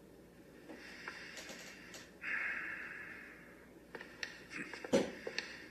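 Water running from a washroom tap into the sink, starting suddenly about two seconds in and fading away a second later, with a few faint handling clicks and a short sharp sound near the end.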